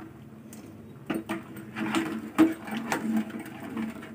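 Metal spoon stirring thick kheer in a metal pot, scraping along the pot and knocking against its sides. It starts about a second in as a run of irregular clinks and scrapes, the loudest knock a little past the middle.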